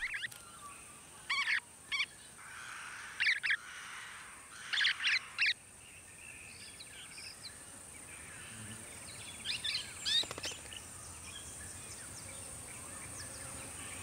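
Golden-shouldered parrots giving short, sharp chirping calls, in quick pairs and triplets during the first half and a few more about ten seconds in, over a steady high-pitched drone.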